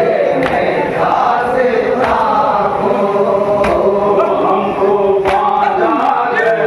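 Men's voices chanting a noha (Muharram lament) together, a lead voice through a microphone, with sharp hand-on-chest matam strikes landing in time about every one and a half seconds.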